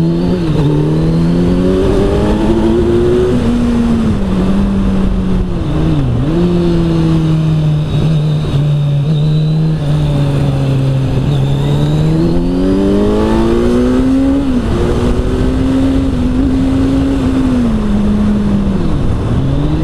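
Kawasaki Z900's inline four-cylinder engine with an Arrow aftermarket exhaust, heard from the saddle under way. The note climbs as the rider accelerates, holds steady, dips sharply and briefly several times, and climbs again.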